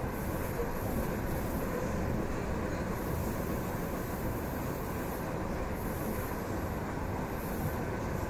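EP2D electric multiple-unit train running between stations: a steady rumble of wheels on rails and running gear, with a faint high hiss that comes and goes.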